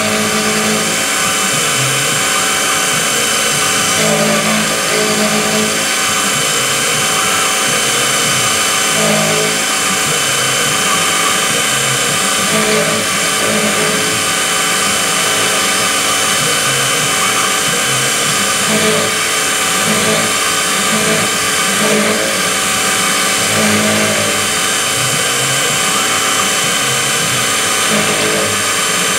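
Small Syil X3 CNC mill cutting a metal plate with a 6 mm end mill under flood coolant: a steady spindle whine with a lower note that shifts every second or so as the cut and feed change.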